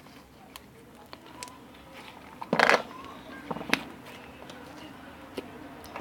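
Slime being played with by hand: scattered small clicks and crackling pops, with one louder noisy pop about two and a half seconds in and a couple of sharp ticks just after.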